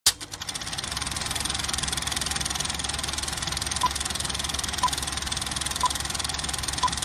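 Film projector sound effect: a steady, rapid mechanical clatter of film running through the projector. From about four seconds in, a short beep sounds once a second, four times, marking a film-leader countdown.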